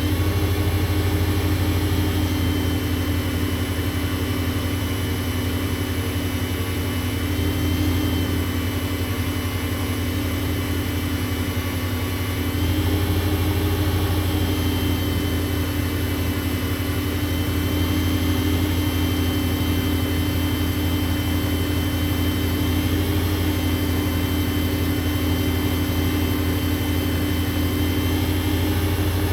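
WEN lathe motor running steadily at speed with a blank spinning, a constant hum with a faint high whine; it gets slightly louder about halfway through.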